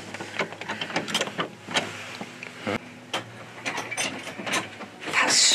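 Round brass doorknob of an old wooden door being twisted and rattled, with many irregular clicks and knocks from the latch; the door is locked shut and does not open.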